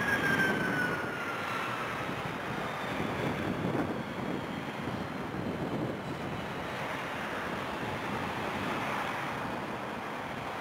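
Airbus A330 jet engines running on the runway: a whine that falls in pitch over the first two seconds, then a steady rumble, with some wind on the microphone.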